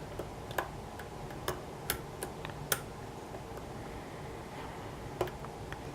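Light, irregular metallic clicks of a lock pick working the pin stacks of a pin-tumbler challenge lock under tension: pins being lifted and set, with a handful of clicks spread over several seconds.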